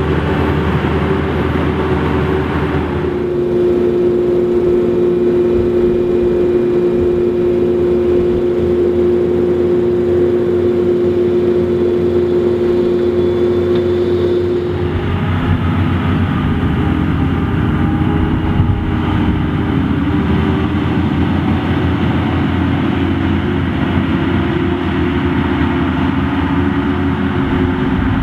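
Heavy farm machinery working in deep mud: tractor engines and a Krone Big X 850 forage harvester. The sound changes abruptly a few seconds in to a steady drone, then about halfway through to engines working under load, their pitch wavering up and down.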